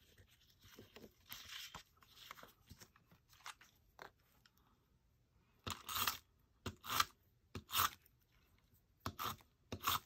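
Tape runner drawn across a paper cutout to lay down adhesive, in about five short strokes in the second half, after a few seconds of faint paper handling.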